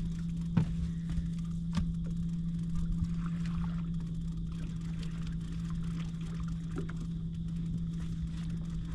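Boat motor running with a steady low hum over a low rumble, with a couple of sharp knocks about half a second and two seconds in.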